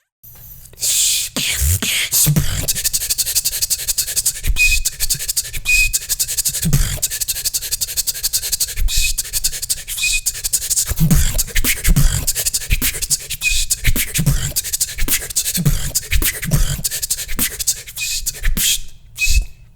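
Vocal beatboxing: rapid hi-hat-like clicks over low kick-drum beats, with short high whistle notes cut in here and there. The whistle is made by the tongue, with air pushed over its middle against the upper teeth.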